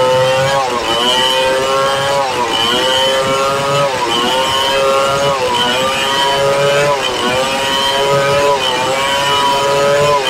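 Stihl 070 two-stroke chainsaw at full throttle ripping lengthwise through a red meranti log. Its pitch dips briefly and comes back up about every second and a half, six or seven times, as the chain loads up in the cut.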